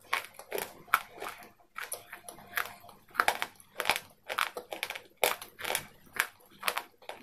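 Close-up crunching and chewing of hard, crumbly white chalk sticks in the mouth: a steady run of sharp crunches, about two or three a second.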